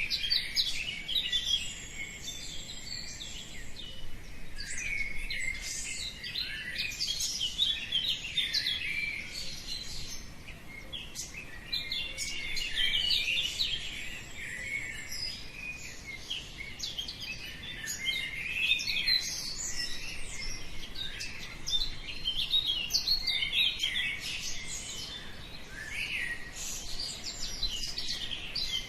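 Many small birds singing and chirping together, a continuous chorus of quick high chirps and trills.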